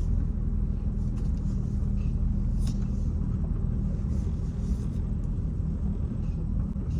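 Truck engine running steadily at low revs, a constant low hum.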